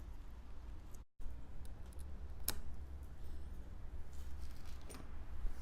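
Quiet scraping and handling with a couple of sharp clicks, from a razor blade trimming the gooey excess strip of a freshly set tire plug.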